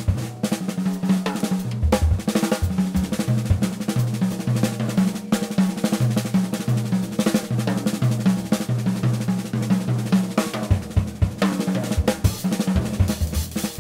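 Background music led by a drum kit, with dense, rapid drum hits over a bass line that steps from note to note.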